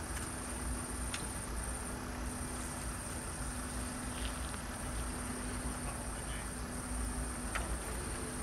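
A steady low hum under a continuous high-pitched insect trill, with a few faint clicks and knocks.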